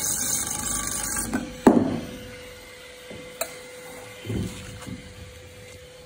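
Electric wire stripping machine running as it strips thick 600 MCM copper cable, cutting off about a second in. A sharp clunk follows, the loudest sound, then a few light knocks.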